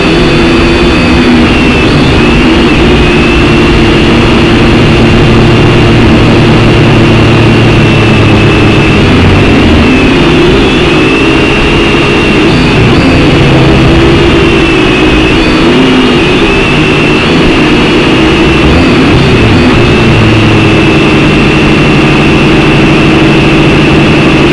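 Syma X5C-1 quadcopter's four small electric motors and propellers whining steadily in flight, the pitch wavering slightly as the throttle shifts.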